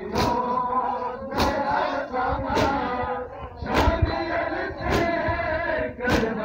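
Crowd of male mourners chanting a noha in unison, punctuated by the whole crowd's hands slapping their chests together in matam, six sharp strikes about 1.2 seconds apart.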